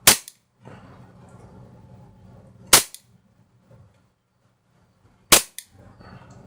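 KSC M9 gas blowback airsoft pistol with its stock slide firing three single shots, about two and a half seconds apart, each a sharp crack of the shot and the slide cycling.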